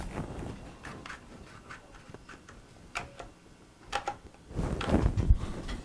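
Plastic spring clamp being handled, giving a few light clicks, then a cluster of dull knocks and rubbing as it is set onto the glued pine boards on a wooden table, about four and a half seconds in.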